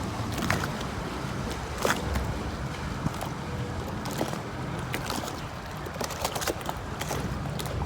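Water lapping and splashing in many small irregular slaps over a steady low wind rumble on the microphone.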